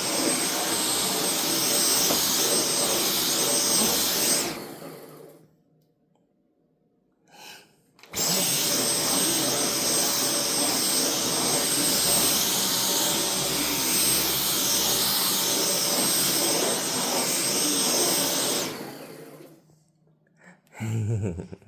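Vacuum cleaner running with a steady high whine. It is switched off about four seconds in and winds down, is switched back on a few seconds later, and runs again until it winds down a few seconds before the end.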